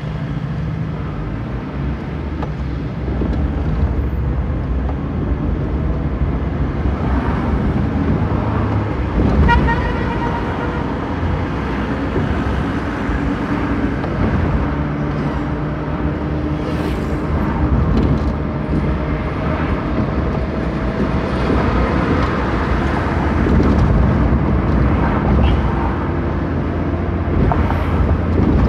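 Car driving through city traffic, a steady low engine and road rumble throughout. A short car horn toot sounds about nine or ten seconds in.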